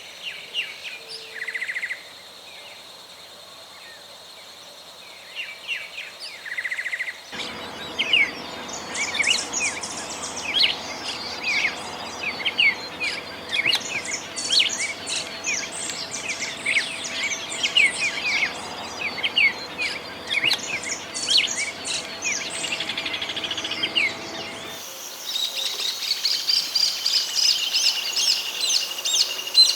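Songbirds singing, a run of quick chirps and warbled phrases, in three separate recordings that change abruptly about a third of the way in and again near the end.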